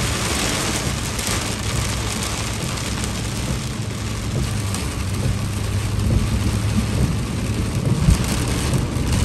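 Heavy rain pelting a moving pickup truck, a 2007 Silverado 3500 with its Duramax 6.6 diesel, together with tyre spray off the wet road, over a steady low drone of engine and road noise. A single thump about eight seconds in.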